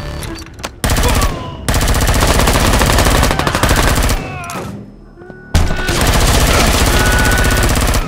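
Rapid automatic gunfire sound effects in two long sustained bursts, with a short lull a little past the middle.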